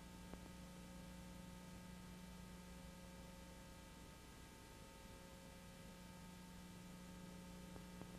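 Near silence: a faint steady hum with hiss and a few faint clicks.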